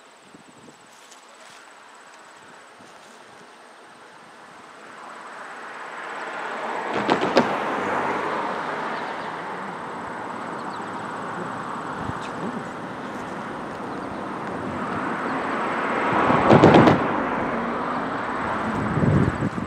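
Two EMD diesel locomotives, a GP38-2 and a GP40-2 with two-stroke V16 engines, approach slowly with a freight train, their running sound growing louder from about a quarter of the way in. Two loud, sudden noisy blasts stand out, one about a third of the way in and another near the end.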